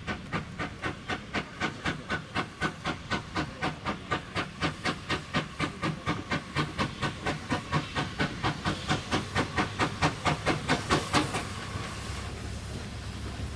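Steam locomotive working, its exhaust beating at about four beats a second and growing louder as it nears. The beats stop abruptly near the end, leaving a steady hiss of steam.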